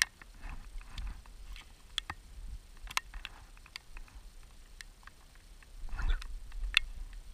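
Raindrops tapping irregularly on an action camera's housing in steady rain, sharp scattered ticks about once or twice a second over a low rumble of wind and handling that swells briefly twice.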